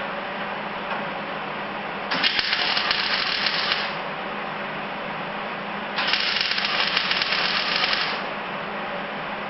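MIG welder laying two short welds on sheet metal, each a crackling burst of about two seconds, over a steady background hum.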